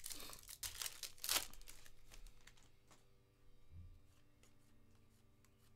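Plastic crinkling and rustling from trading cards and their clear plastic sleeves being handled, in a few short bursts during the first second and a half. After that come fainter card-handling clicks and a soft bump near four seconds.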